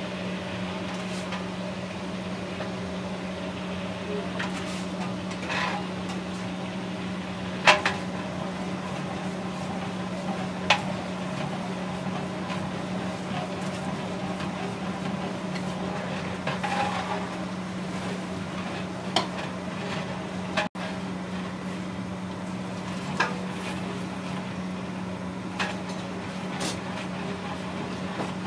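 Oil frying in a large aluminium cooking pot while a long metal ladle stirs, knocking sharply against the pot several times, over a steady low machine hum.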